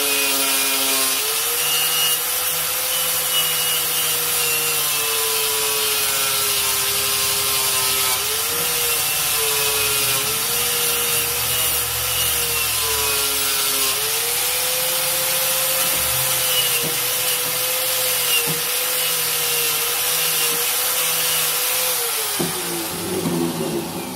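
Electric rust-removal power tool running against the screwdriver blade of an old Camillus electrician's knife: a steady motor hum with an abrasive hiss, the pitch sagging each time the blade is pressed in and recovering when it is eased off. Near the end the motor winds down and the sound fades.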